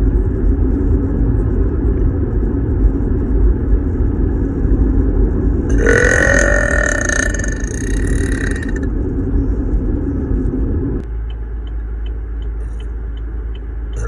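A woman burping loudly: a long, low, steady burp that stops abruptly about eleven seconds in, with a higher burp rising in pitch over it from about six to nine seconds in.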